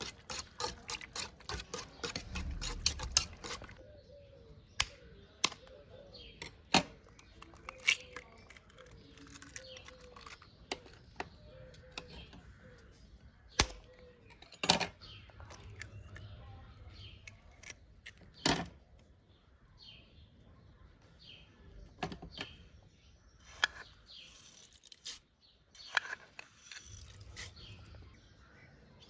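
Cutlery and dishes clinking: a quick run of taps for the first few seconds, then scattered sharp clicks and knocks.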